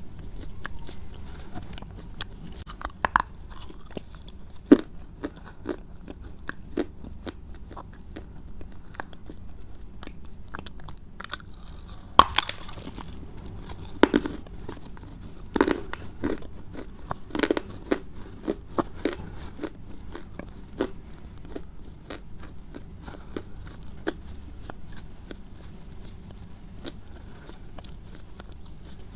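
Close-miked crunchy chewing: irregular crisp crunches and bites, with a louder run of crunches about halfway through, over a faint steady low hum.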